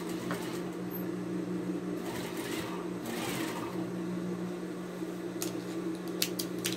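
Electric sewing machine running steadily with a continuous motor hum as a seam joining two fabric bias strips is stitched. A few light clicks come near the end.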